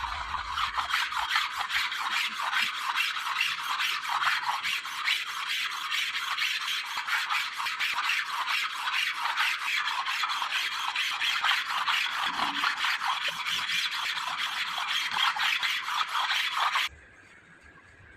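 Rapid hand rasping on metal, several quick back-and-forth strokes a second, like a file or abrasive worked over engine cylinder-head parts. It stops abruptly near the end.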